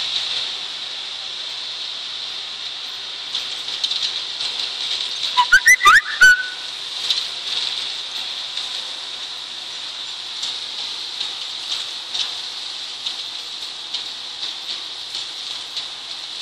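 A distant tractor and flail mower work under a steady high hiss. About five and a half seconds in comes a short, loud run of rising whistles.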